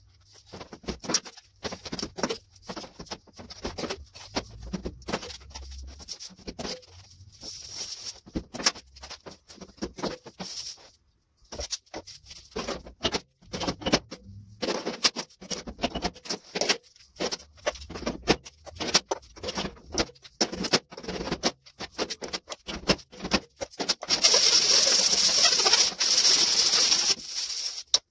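Slide-hammer dent puller working dents out of a 1953 Chevy truck's bare sheet-steel roof: a long, irregular run of sharp metal knocks as the weight is jerked against its stop. Near the end a loud steady hiss runs for about three seconds.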